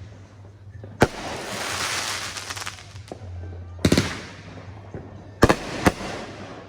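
Consumer aerial fireworks bursting: a sharp bang about a second in, a quick double bang near four seconds and two more bangs about half a second apart near the end, with crackling hiss trailing after the bursts.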